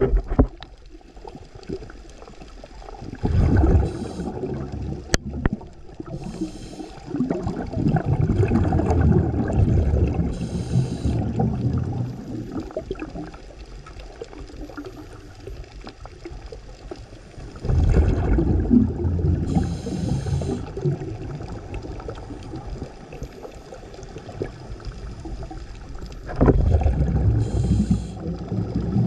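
Scuba diver breathing through a regulator underwater. Short faint hisses of inhalation alternate with longer bubbling exhalations, which repeat every several seconds and are the loudest thing heard.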